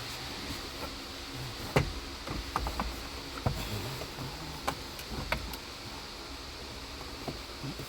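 Scattered sharp clicks and knocks of plastic and metal parts being handled as a car's AC blower motor is fitted, over a steady hiss. The clicks cluster between about two and five and a half seconds in.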